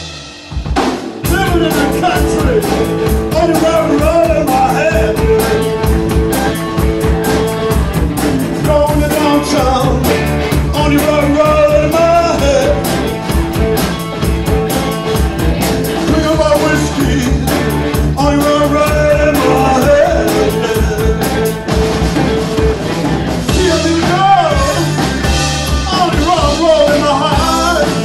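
Live blues-rock band playing: electric guitars and a drum kit, with a wavering lead melody over them, kicking in at full level about a second in. Recorded on a phone.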